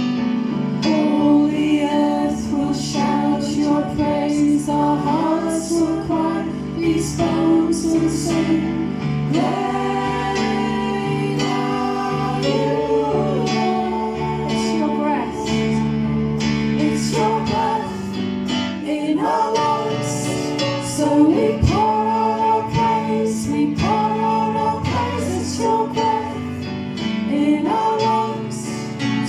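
Worship song: a woman's voice singing over guitar and sustained chords.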